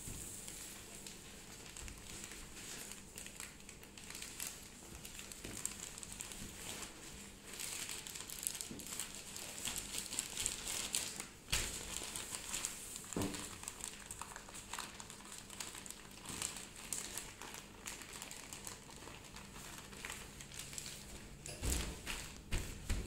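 Clear plastic packaging bags crinkling and rustling as gloved hands handle and pack bags of powder, with a few short knocks scattered through.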